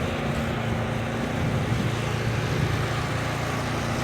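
Kohler engine of a flatbed-mounted pressure washer running steadily at a constant speed, a low even drone.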